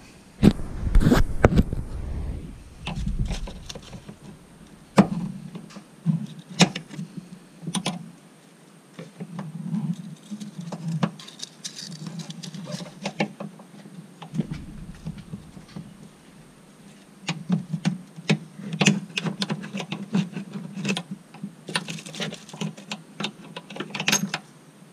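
Hand work on a hood strut's lower mounting bracket: scattered sharp metal clicks, taps and scrapes at an irregular pace, busiest about a second in and again in the last several seconds, as the bracket is worked loose for strut replacement.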